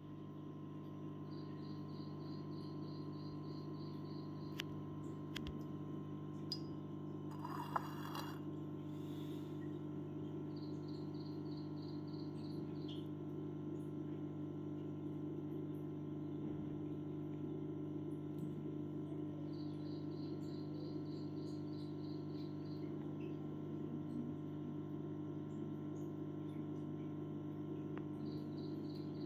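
A steady low hum, with spells of rapid high chirping, about three or four chirps a second, coming and going four times.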